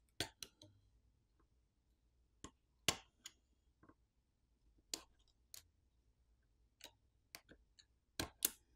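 Small sharp clicks of flex-cable connectors being popped off a Xiaomi Poco X6 5G's mainboard with a plastic pry tool: about ten faint clicks at irregular intervals, the loudest two close together near the end.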